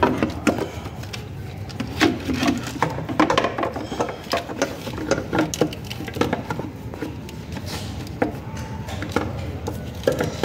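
Irregular knocks, clicks and scrapes of hands and parts working against the underside of a car's engine while a new crankcase-breather flame-trap part is fitted, over a steady low hum.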